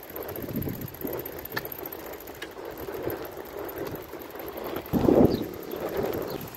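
Bicycle rolling along on a flat tyre, with wind buffeting the microphone and a couple of light clicks. A louder gust of wind noise comes about five seconds in.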